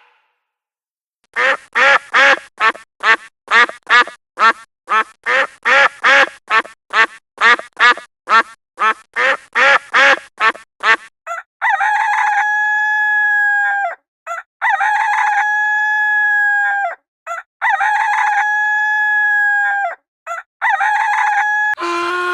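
Domestic chickens calling: a quick run of about twenty short calls at roughly two a second, then four long, drawn-out calls of about two seconds each, a rooster crowing.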